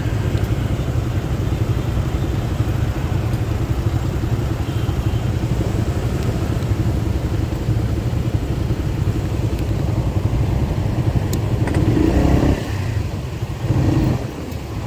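Motorcycle engine idling steadily, a low rumble heard from the rider's seat with traffic around. About twelve seconds in it swells louder, then the rumble drops away and returns unevenly near the end.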